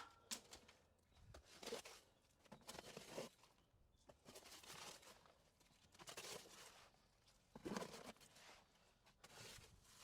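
Faint, irregular scraping and rustling every second or so: someone working in the bottom of a drained pond, clearing muck off the plastic pond liner and shuffling about on it.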